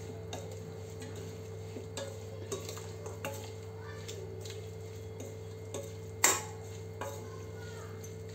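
A spoon stirring and mixing chunky karonda and chilli pickle in a stainless steel bowl, with scattered light clinks and scrapes of the spoon against the metal and one louder knock about six seconds in. A steady low hum runs underneath.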